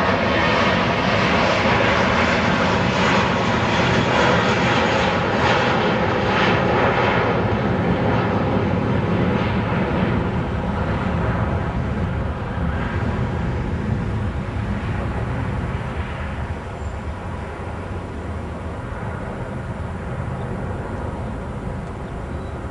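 Jet engines of a US Airways Airbus airliner at takeoff power, a loud steady rushing noise that slowly fades as the plane moves away; the high hiss drops off from about eight seconds in.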